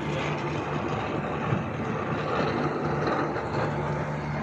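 Packaged air-conditioning unit running with its three newly replaced compressors, a steady mechanical hum with a constant low drone under an even rush of noise.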